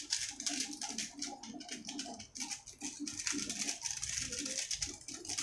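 Bean sprouts and tofu frying in a wok, a dense crackle and ticking, mixed with the crinkle of a plastic seasoning sachet being torn open and shaken over the pan.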